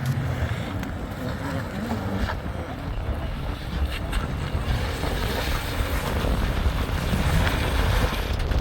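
Off-road vehicle engine running with a steady low rumble, with wind buffeting the microphone.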